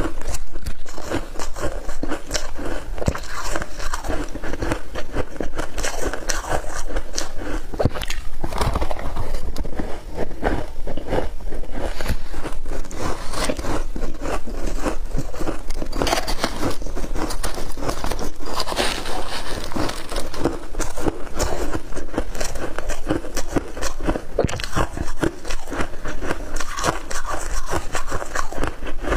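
Close, continuous crunching of shaved ice as it is scooped up with a spoon, bitten and chewed.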